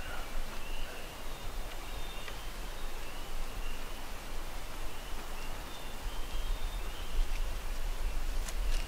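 Faint, short high-pitched calls repeating every half second to a second from distant wildlife, over a steady low rumble, with a couple of sharp clicks near the end.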